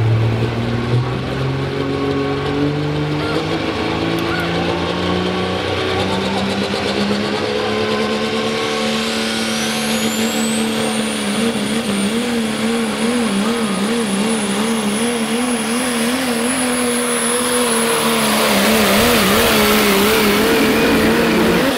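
Turbocharged diesel engine of a pro stock 4x4 pulling truck under full load. The engine note climbs steadily in pitch. About ten seconds in, a high turbo whine rises and then holds. The engine note then wavers rapidly up and down for several seconds and grows louder near the end.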